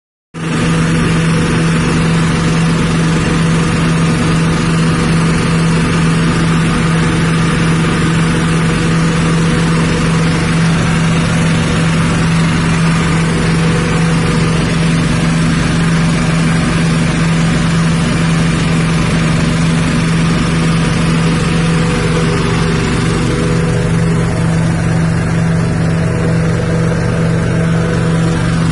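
Rice-husk grinding machine driven by a 6.5 HP petrol engine, running steadily at speed with a strong, even hum. The sound cuts in abruptly at the start.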